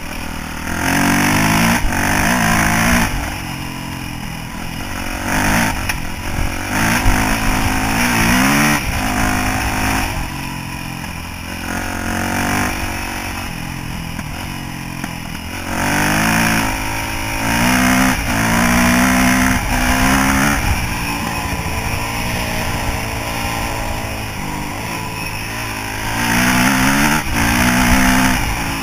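Yamaha YZ426F single-cylinder four-stroke dirt bike engine accelerating hard up through the gears, its revs climbing and dropping at each shift, then easing off between bursts over a steady low rumble.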